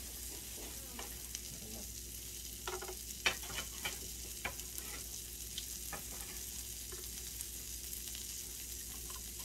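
Thin-sliced beef sizzling steadily on a hot tabletop electric grill plate, with scattered light clicks and taps as slices are laid on, most of them between about three and six seconds in.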